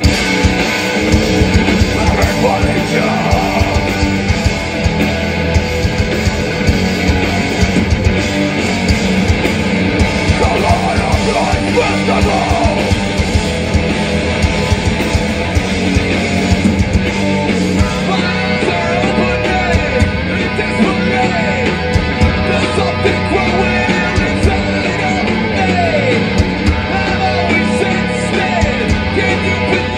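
Hard rock / post-hardcore band playing loud live: distorted electric guitars, bass and drum kit come in together all at once at the start. A singer's voice is over it near the end.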